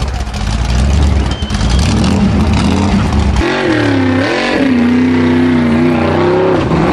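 Formula Offroad buggy engines running at full throttle. About three and a half seconds in, the sound changes abruptly to a high-revving engine whose pitch rises and falls as the buggy claws up a steep dirt hill.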